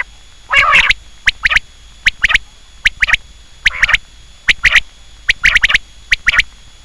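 Quail calling: loud, short, sharp notes, mostly in quick pairs, repeated about once every second.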